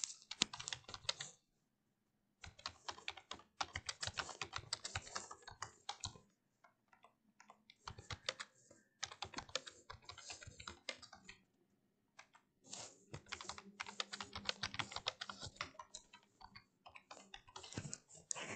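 Typing on a computer keyboard: faint, quick key clicks in four runs of a few seconds each, broken by short pauses.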